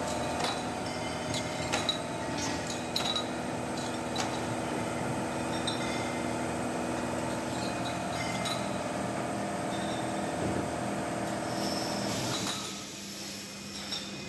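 Steady hum of a running six-head beer bottle filler, with glass beer bottles clinking now and then as they are set on and lifted off the filling heads. The hum stops near the end.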